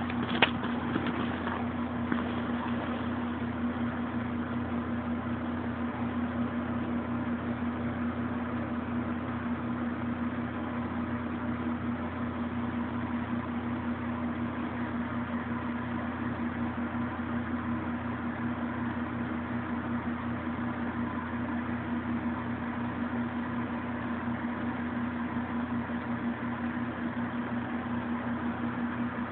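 A steady, unchanging hum with a constant low tone, like a running household appliance or fan, with a couple of soft knocks in the first two seconds.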